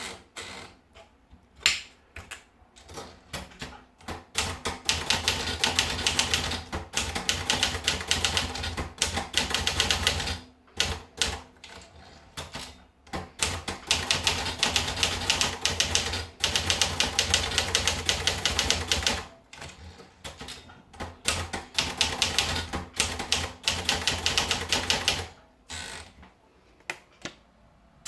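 Olivetti Lettera 37 manual portable typewriter being typed on. A few single keystrokes lead into three long runs of rapid, steady typing, each broken by short pauses with only scattered strokes.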